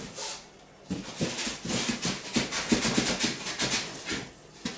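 Hands rummaging through packing material in a cardboard box: a quick, irregular run of rustling and scraping that starts about a second in and eases off near the end.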